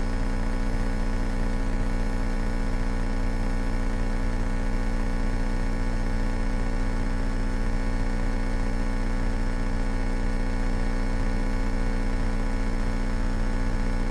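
The 1970 Cessna 172K's four-cylinder Lycoming engine and propeller droning steadily in flight, with an unchanging pitch.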